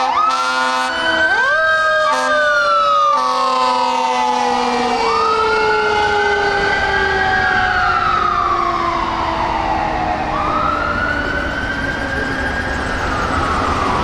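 Fire engine sirens on a 2018 Spartan Gladiator pumper. An electronic siren wails, rising and falling every few seconds, over a mechanical siren that spins up about a second in and then slowly winds down. Air horn blasts sound in the first few seconds.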